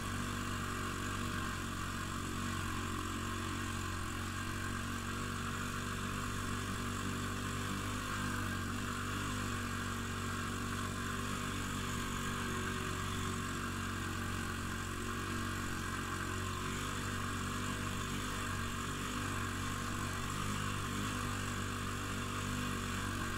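Small snowmobile's engine running at a steady speed while under way, a constant drone with no change in pitch.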